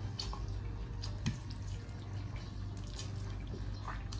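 A person chewing food, with faint wet mouth sounds and a few small clicks over a steady low hum.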